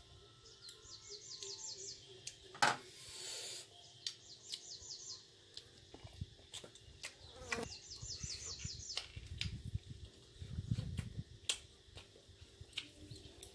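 A bird singing a short phrase of quick, repeated high notes three times, over close mouth clicks and chewing as pieces of boiled buffalo skin are eaten.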